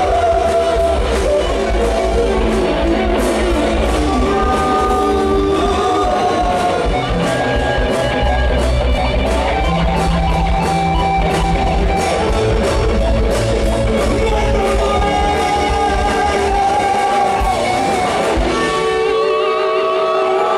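Live rock band playing loudly through a PA, with a male singer over guitar and a steady beat. About a second before the end the bass and beat drop out, leaving held notes ringing.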